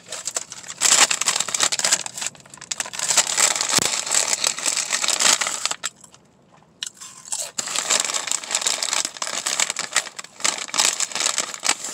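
Crinkling of a Herr's potato chip foil bag as a hand works in it, mixed with crisp chips crunching as they are bitten and chewed, with a short pause about six seconds in.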